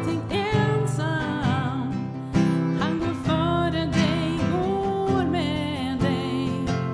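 A woman singing a song with acoustic guitar strummed as accompaniment, holding some notes with vibrato.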